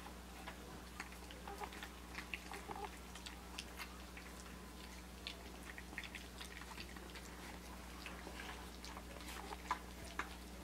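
A litter of Australian Shepherd puppies, nearly four weeks old, eating their first puppy mush from a shared dish: many small, irregular chewing clicks and mouth noises, with a few sharper clicks near the end.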